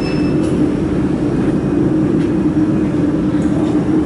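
Steady mechanical hum from the running laser welding machine setup, with a short high beep right at the start.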